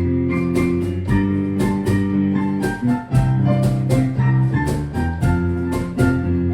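Instrumental music with no singing: held chords over a steady beat, with guitar and keyboard tones.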